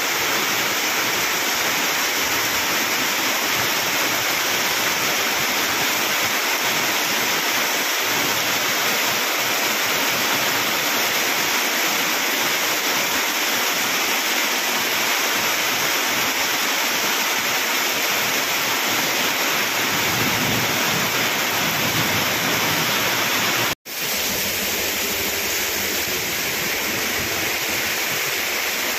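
Heavy rain and rushing water: a loud, steady noise of water that drops out for an instant about three-quarters of the way through, at a cut in the recording.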